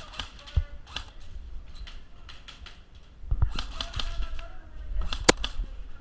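Airsoft gunfire: irregular sharp snaps and clicks of shots and BB hits, bunched together in the second half, with one loudest crack about five seconds in.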